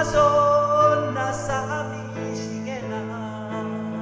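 A man sings a Japanese enka ballad to his own piano accompaniment. He holds a long note with vibrato for about the first second and a half, over sustained piano chords that carry on after it.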